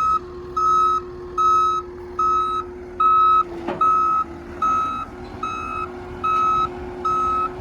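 Backup alarm of a John Deere 331G compact track loader beeping steadily, a bit more than once a second, as the machine reverses onto its trailer, with the steady drone of its running engine beneath and a single knock near the middle.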